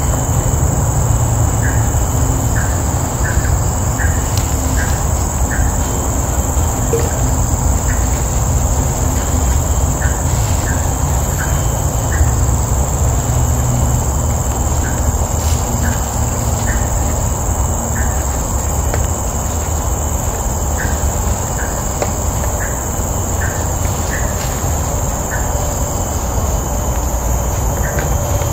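Forest ambience: a steady high-pitched insect drone, with short chirps repeating irregularly about once or twice a second over a steady low rumble.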